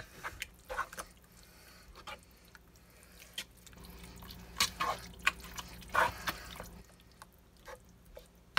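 A plastic spoon stirring a thick, creamy chicken-and-noodle casserole mixture in a large pot: irregular wet squelches and sloshes, loudest from about four to seven seconds in.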